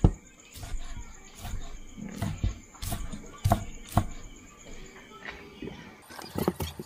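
Kitchen knife chopping grilled pork face meat on a thick wooden log chopping block: irregular sharp knocks of the blade striking the wood, about one or two a second, with a quicker run of lighter knocks near the end.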